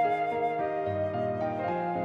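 Background music: a gentle melody of held flute-like notes over piano.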